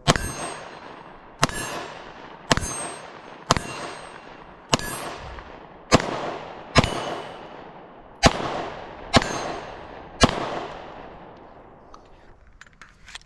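Glock 43X MOS 9mm pistol fired ten times at a steady pace, roughly one shot a second, with the last shot about ten seconds in. Each shot is followed by a long echo off the surrounding hillsides.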